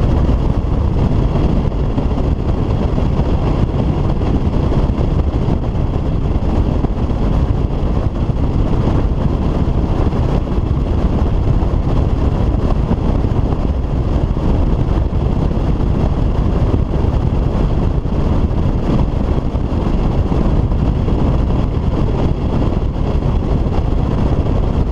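Bass boat running at speed across open water: a loud, steady rush of wind buffeting the microphone, mixed with the outboard engine and the hull on the water.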